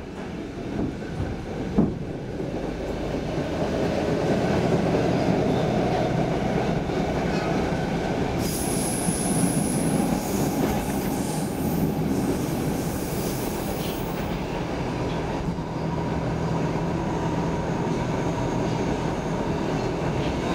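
Stockholm Metro C6 subway train heard from inside the car, running through the tunnel and picking up speed: the rumble grows louder over the first few seconds with a faint rising whine. About eight seconds in, a high wheel squeal sets in and lasts around six seconds before dying away.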